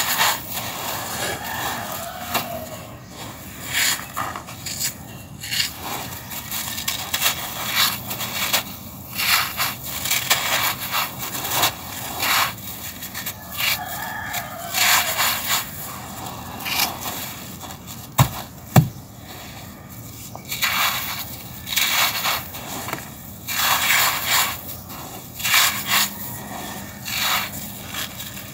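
Dry yellow sand scooped up, trickled and crumbled between fingers against the floor: gritty crunching and hissing grains, coming in uneven runs as the hands squeeze and rub. One sharp click stands out about two-thirds of the way through.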